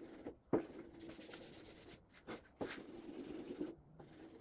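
Sanding has stopped; a few light knocks and clicks from handling the sanding block, about half a second in, twice around the middle and once near the end.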